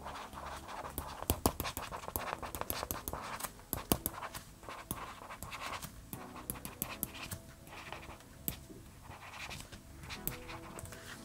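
Boox Pen 2 Pro stylus nib scratching across the Boox Tab Ultra's e-ink screen in short handwriting strokes, with sharp taps as the nib lands. Soft music plays underneath.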